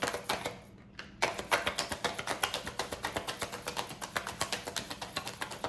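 Tarot cards being shuffled by hand: a run of quick papery clicks, several a second, starting about a second in.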